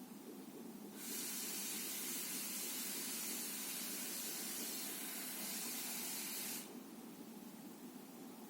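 Sea noise at the shore: a low constant rush with a loud steady hiss of surf on top. The hiss starts abruptly about a second in and cuts off abruptly about two seconds before the end.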